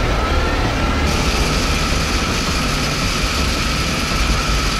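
Armoured troop carrier running on the move: a loud, steady engine rumble with a constant whine from the drivetrain, heard from aboard the vehicle. About a second in, the sound gets brighter and hissier.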